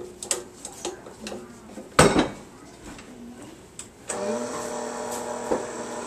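Tilt-head stand mixer being handled: light clicks and knocks, then a loud clunk about two seconds in as the raised mixer head is lowered and locked onto the bowl. About four seconds in, the mixer's electric motor starts and runs steadily, beating the brownie batter.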